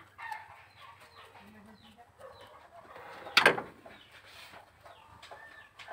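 Chickens clucking, with many short falling chirps, and one loud short squawk or bang about three and a half seconds in.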